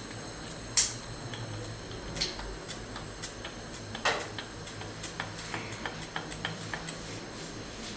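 Small metal parts and hand tools clicking and tapping on a workbench, with one sharp click just under a second in, a few more spread out, and a quick run of light ticks later on, over a steady low hum.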